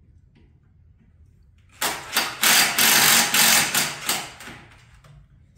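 Cordless drill running in uneven bursts against metal on the motorcycle, fitting a small sheet-metal screw. It starts suddenly about two seconds in, runs for a bit under three seconds, then winds down.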